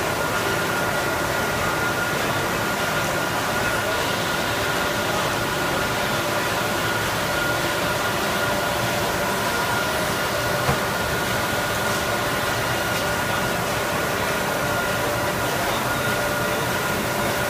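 Steady running noise of industrial machinery: an even hiss and hum with a constant high whine and a few fainter fixed tones, and one small click about eleven seconds in.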